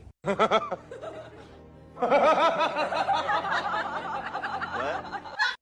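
Laughter: a long run of quick, short pitched bursts starting about two seconds in, over music, after a few shorter calls in the first second.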